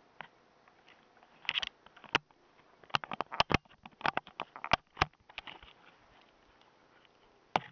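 Handling noise: a quick run of sharp clicks and knocks from about a second and a half in to just past five seconds, then one more knock near the end, as the camera is picked up and moved about.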